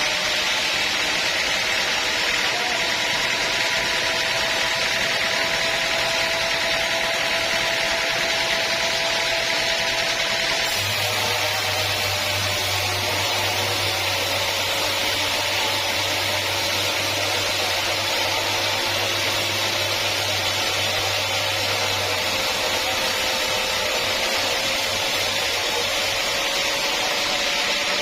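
Sawmill saw cutting steadily through a teak log: an unbroken cutting noise with a faint tone that slowly wavers in pitch, and a low hum joining in for a stretch in the middle.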